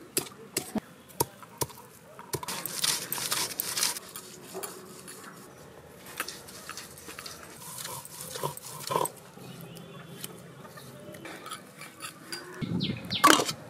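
Stone roller on a flat stone grinding slab (shil-nora) crushing and grinding ginger and garlic into a paste: a few sharp stone-on-stone knocks at first, then bouts of rough scraping as the roller is worked back and forth, with a louder knock and scrape near the end.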